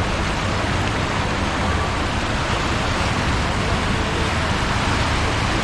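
Floodwater rushing along a flooded street: a steady, even roar of fast-moving water, with a low steady hum underneath.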